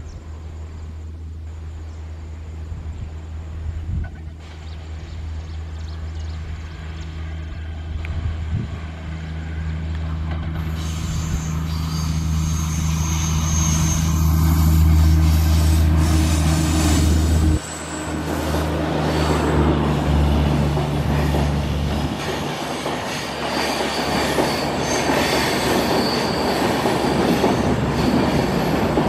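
Passing passenger train on a curving ghat line. A steady low hum from the locomotive builds up over the first half, then breaks off abruptly near the middle. After that come wheel noise and high-pitched wheel squeal on the curved track, with some clattering.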